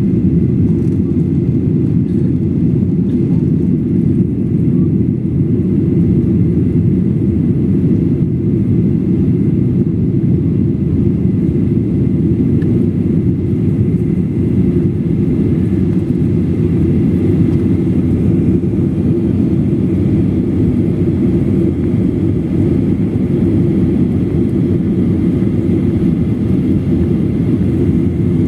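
Boeing 737-800 airliner in flight, a loud, steady low rumble of engine and airflow noise that does not change.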